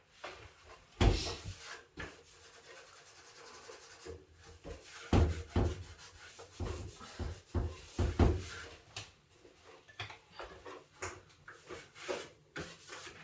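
Cloth rubbing and wiping over an electric convector heater, broken by irregular knocks and bumps as it is handled; the loudest thumps come about a second in and again around five to eight seconds in.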